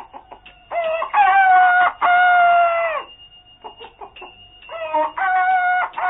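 Rooster crowing twice: a long crow starting about a second in, and a shorter one near the end.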